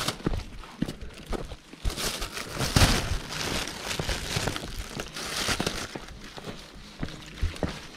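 Thin plastic bag crinkling as it is held and swung in the hand while walking, loudest from about two to six seconds in.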